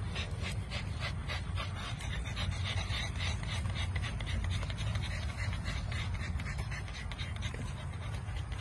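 Bully-breed puppies panting fast, a quick even run of breaths several times a second, over a steady low rumble.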